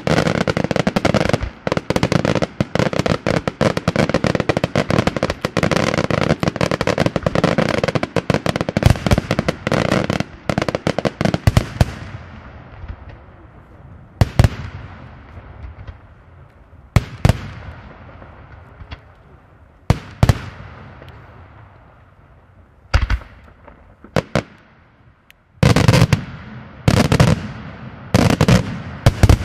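Daytime aerial fireworks shells bursting: a dense, rapid barrage of bangs for about twelve seconds. After that come single heavy bangs every couple of seconds, each trailing off in an echo, with a quicker cluster of bangs near the end.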